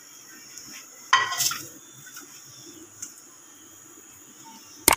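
Cookware handled over a steel bowl: a short metallic clatter with brief ringing about a second in, a small tick, then a sharp clink near the end. A faint steady high chirring of insects runs underneath.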